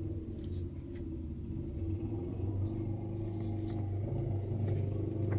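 A steady low mechanical hum that grows slightly louder, with a few faint rustles and ticks from a picture-book page being turned.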